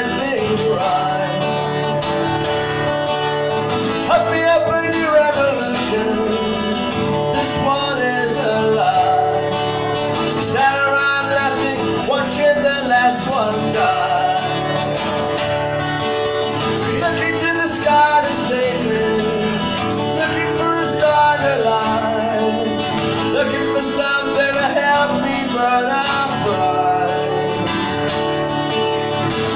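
A man singing live to his own strummed acoustic guitar, with a steady strumming rhythm under the vocal line.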